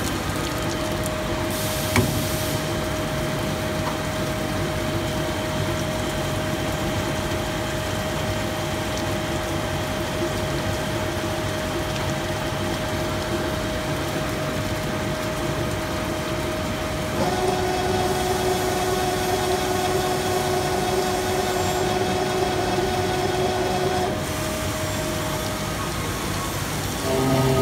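Cam milling machine running, a steady mechanical noise with a held whine. The whine shifts pitch about two-thirds of the way through and returns a few seconds later, and there is one sharp click early in.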